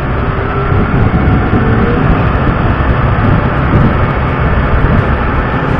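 Pushback tug's engine running steadily under load close up, mixed with the loud rumble of jet aircraft on the apron.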